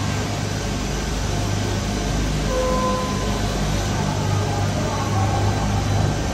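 Gondola ropeway station machinery running steadily with a low hum as a gondola cabin rolls slowly through the station on its drive tyres. A few brief higher tones come through about two and a half seconds in and again near the end.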